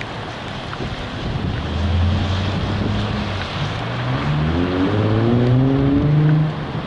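Car engine pulling away and accelerating: its pitch climbs in steps through the second half, then drops near the end as the transmission shifts up. Road and wind noise run underneath.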